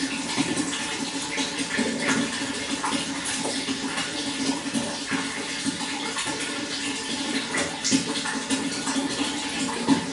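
Running water flowing steadily, full of small splashes and gurgles.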